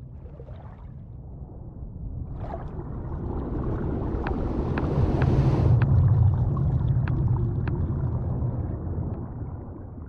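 Designed underwater ambience: a deep, muffled rumble that swells to its loudest around the middle and fades toward the end, with scattered small clicks through the middle.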